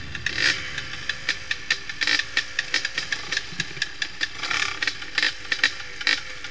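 Dirt bike engine idling, with a rattle and sharp regular ticks about four a second.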